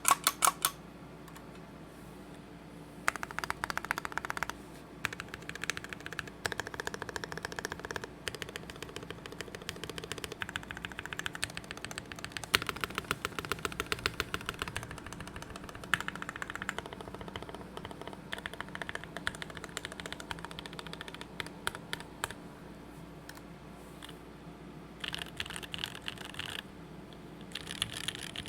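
RS60 custom mechanical keyboard being typed on: SP-Star Meteor White linear switches in a burger-mounted aluminium-plate board with GMK keycaps, giving a fast run of keystroke clacks with occasional louder hits. A few keystrokes sound at the very start, then the steady typing begins about three seconds in and thins briefly near the end.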